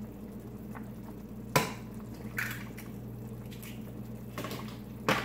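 Kitchen food preparation at a counter: two sharp knocks of items against a bowl or counter, one about a second and a half in and one near the end, with lighter rustling and handling sounds between, over a steady low hum.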